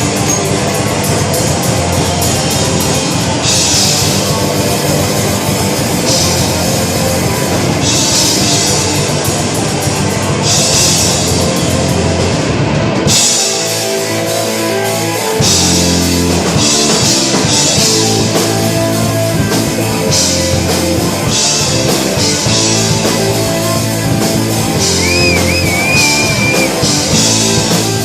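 Live heavy metal band playing loud, with distorted electric guitars, bass and a drum kit. About thirteen seconds in the low end drops out for roughly two seconds, then the full band crashes back in.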